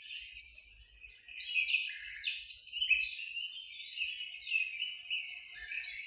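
Many small birds chirping and twittering at once, a dense run of overlapping short calls that grows louder after about a second.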